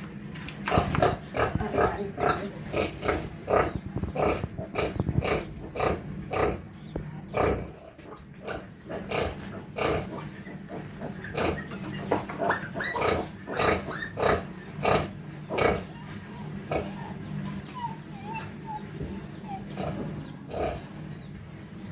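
A nursing sow and her newborn piglets grunting at the teats: a steady run of short grunts, about two a second, that thins out to scattered ones after about sixteen seconds.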